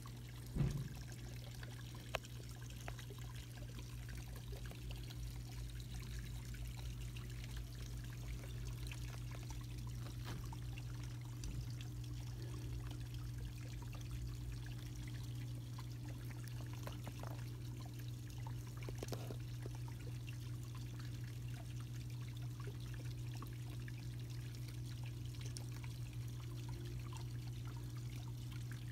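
Steady low hum under a faint, even trickle of running water, with a short knock about half a second in.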